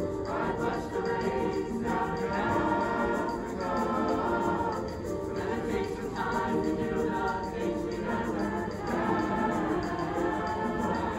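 Mixed choir of young male and female voices singing together in several parts, the phrases swelling and easing.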